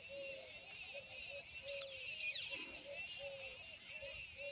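Outdoor chorus of birds and insects: a continuous high shrill buzz, a short low note repeating about three times a second, and two quick falling bird calls about two seconds in.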